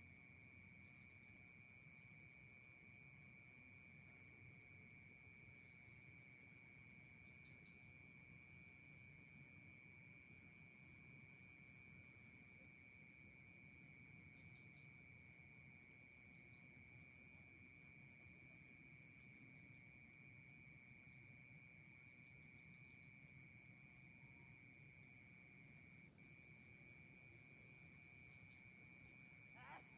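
Faint, steady chorus of night insects such as crickets: a continuous high trill with fast even pulsing over a second, lower steady tone. A brief chirp comes near the end.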